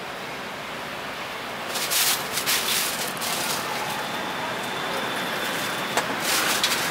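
Thin plastic bag crinkling and rustling in bursts, about two seconds in and again near the end, as meat is tipped and packed into it, over steady street traffic noise; one sharp click about six seconds in.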